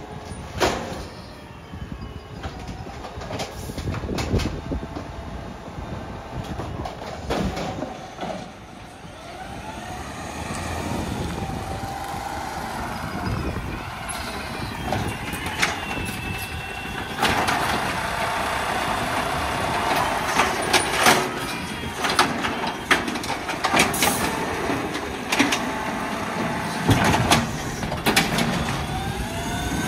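Automated side-loader garbage truck at work. Its hydraulic arm tips a cart, with several sharp knocks and clanks in the first few seconds. From about halfway the engine revs up and the arm mechanism runs louder, with more knocks as it reaches out for the next cart.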